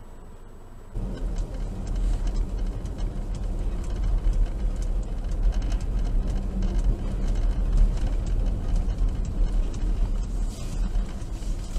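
Road noise inside a moving car on a snow-covered road: a steady low rumble and tyre hiss with scattered light clicks. It gets much louder about a second in, after a quieter hum.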